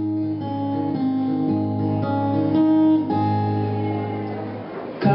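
Solo acoustic guitar playing a slow instrumental passage, its chords ringing on and changing about once a second.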